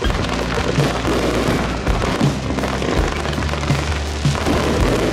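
Fireworks crackling and bursting in a dense, steady barrage, with music playing over them.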